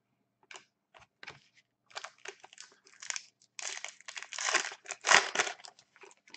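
Foil trading-card pack wrapper crinkling and tearing as it is opened by hand, a run of irregular rustles that grows loudest about four to five seconds in.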